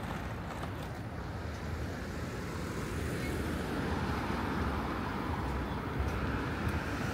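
Road traffic: a car going by on the street, its engine and tyre noise slowly growing louder.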